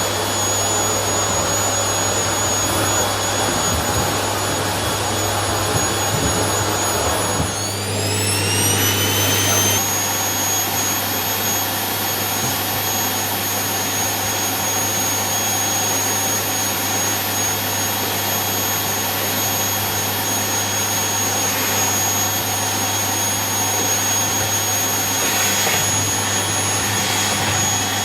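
Vacuum cleaner running with a steady motor whine; about eight seconds in the whine glides up in pitch over a couple of seconds, then holds steady at the higher pitch.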